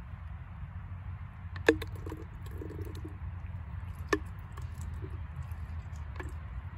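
A lemon half squeezed by hand into an empty plastic squeeze bottle, with faint soft squelching. Two sharp clicks, the first about a second and a half in and the second about four seconds in, over a steady low rumble.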